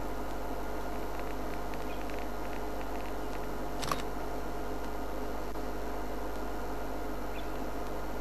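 Steady hum and hiss with several fixed tones, with faint ticks in the first few seconds and one sharp click about four seconds in.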